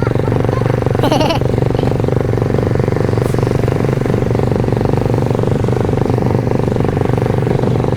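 Motorcycle engine running at a steady speed while riding. There is a short, high, warbling sound about a second in.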